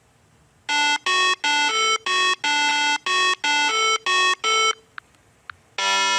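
A short electronic tune of about eleven quick, clean notes. Near the end a second phrase with a fuller tone begins.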